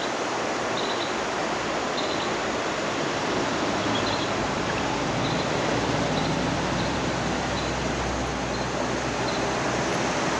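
Steady rush of river water from the current and rapids.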